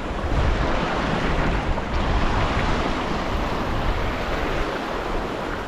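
Ocean surf breaking and washing in steadily, with wind rumbling on the microphone.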